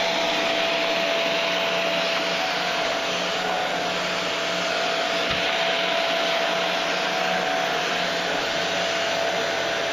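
Cylinder vacuum cleaner running steadily: a rush of air with a thin, constant motor whine, as its floor head is worked over carpet.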